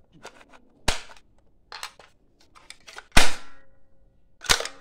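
Three sharp pops from an 'explosive sticks' toy game box as yellow sticks are pulled out of it. The loudest comes about three seconds in, with a short ringing tail.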